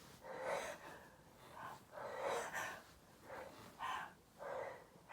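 A person's short breathy gasps, several in a row, the drawn-in breaths of a sneeze building up.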